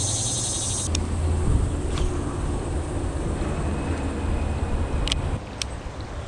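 Insects trilling in a dense high chorus that cuts off about a second in, over a steady low outdoor rumble, with a few sharp clicks later on.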